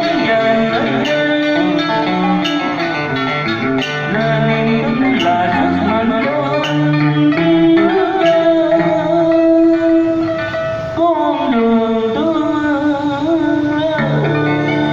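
Instrumental music with a plucked-string melody over sustained accompaniment, playing steadily between the sung verses of a Vietnamese song.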